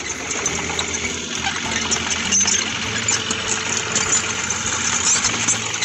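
Doosan DX35 mini excavator's diesel engine running steadily, with one brief knock a little over two seconds in.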